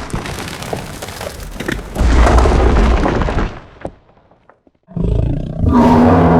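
Designed dragon sound effect: a rough, noisy roar that swells again at about two seconds and dies away by four. After a brief pause, a deeper pitched growling roar starts at about five seconds and carries on.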